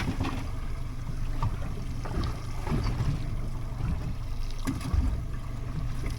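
Wind rumbling on the microphone over water sloshing against a small boat's hull in rough seas, with a couple of light knocks near the end.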